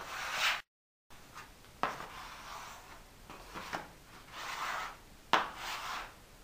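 Flat hand spreader scraping white Fevicol wood glue across a plywood board in a series of separate strokes, several starting with a sharp tap as the blade meets the wood.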